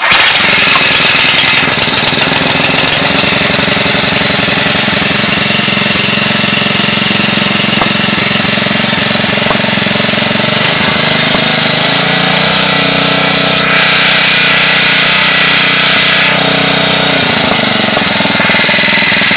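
Honda G100 single-cylinder four-stroke engine on a Power Trim lawn edger, cold-started: it catches at once and runs on steadily with a loud, rapid rattling beat, its note shifting a few times as it settles.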